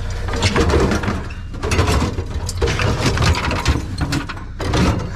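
Irregular knocks and rattles, a few every second, over a low steady rumble.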